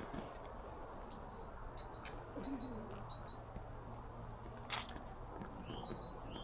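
A small bird calling with a series of short, high chirps, about three a second, with a pause in the middle. A sharp click about five seconds in.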